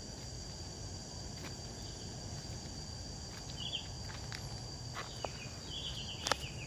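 Insects droning steadily at a high pitch, with irregular light crunching footsteps on a path of broken brick and a sharper click near the end.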